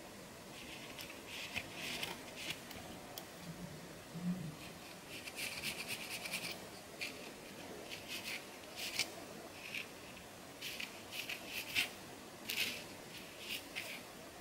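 Fine-toothed plastic comb scraping across a dandruff-flaked scalp in short, irregular strokes, each a brief dry scratch, coming in quick clusters.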